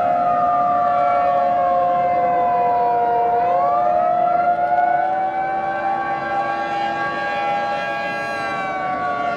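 Civil defense siren wailing as a chord of several tones. The pitch slides down for about three seconds, climbs back up, holds, then begins to fall again near the end.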